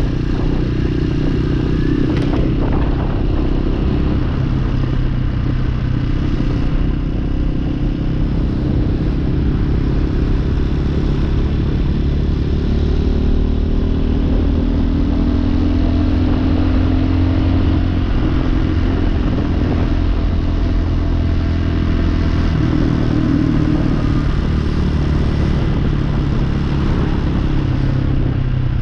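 Hawk 250cc motorcycle's single-cylinder engine running while being ridden on its newly fitted carburetor, its pitch rising and falling several times as the engine speed changes.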